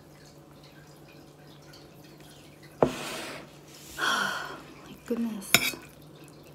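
Metal spoon clinking against a ceramic soup bowl twice while eating, with a breathy exhale and a brief hummed 'mm' from the eater between the clinks. A faint steady hum sits underneath.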